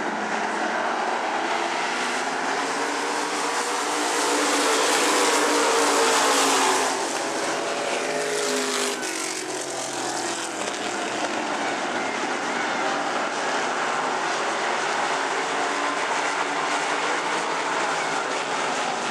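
A field of Pure Stock dirt-track race cars running at speed, several engines at once. The sound swells as the pack comes by about four seconds in, peaks a couple of seconds later, then eases back to a steady drone as the cars move away.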